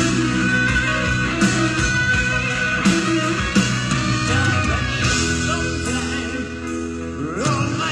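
Live rock band playing a slow power ballad: electric guitar over held chords, with drum and cymbal hits about every second and a half. A rising pitch slide comes near the end.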